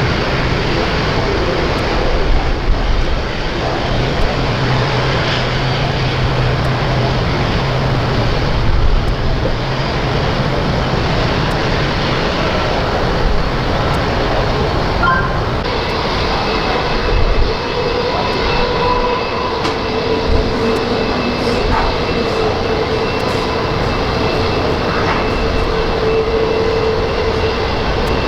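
Jet aircraft engines running: a loud steady roar, with a steady higher whine joining about halfway through.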